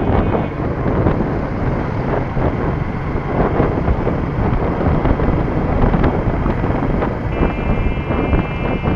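Wind buffeting the microphone over the engine and road noise of a Suzuki Gixxer SF single-cylinder motorcycle riding through town traffic. From a little past seven seconds in, a vehicle horn sounds and is held steady.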